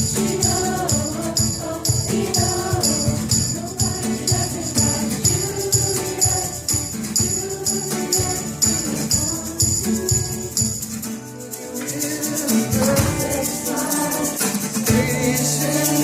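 Live pop-rock band playing, with a steady shaker rhythm. The music thins out briefly about eleven seconds in, then comes back fuller.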